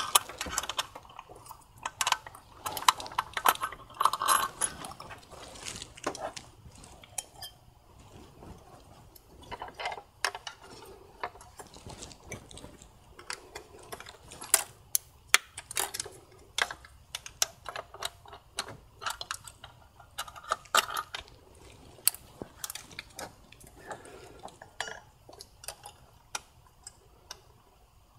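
Irregular metallic clicks and clinks of bolts and hand tools as intake manifold bolts are started into the cylinder head of a VW/Audi 2.0T TSI engine, with short runs of ratchet clicking, busiest in the first few seconds.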